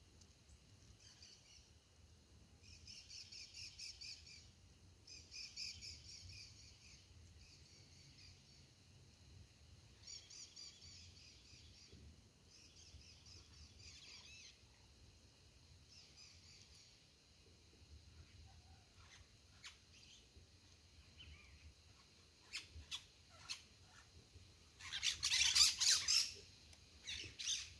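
Small birds chirping in short, repeated high phrases for much of the time. Near the end come a few sharp clicks and then a loud, harsh burst of about a second and a half.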